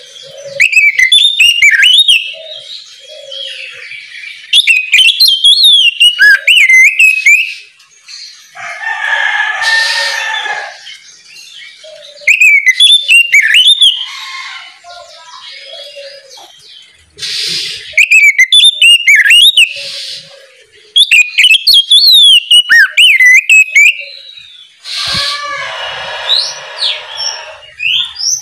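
Oriental magpie-robin (kacer) singing loudly in repeated bouts of rapid, gliding whistles and warbles. Between the bouts come three longer, harsh, raspy sounds.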